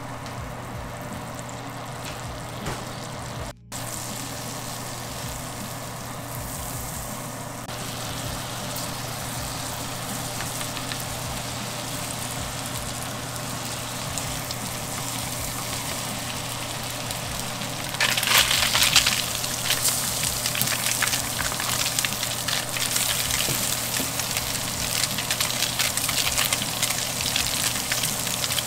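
Whiting fillets frying in foaming butter in a stainless steel pan: a steady sizzle that turns louder and more crackly about two thirds of the way through.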